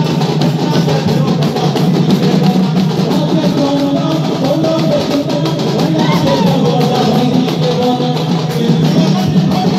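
Ghumura folk dance music: ghumura drums and other percussion beaten in a fast, driving rhythm, with a sustained melody line above, played loud and without a break.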